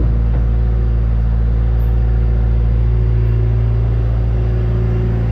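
Skid steer's diesel engine idling steadily while it warms up after a cold start.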